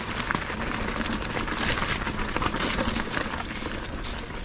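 Mountain bike ridden down a wet dirt singletrack: tyre noise with frequent clicks and rattles from the bike, and leafy bushes swishing against the rider now and then.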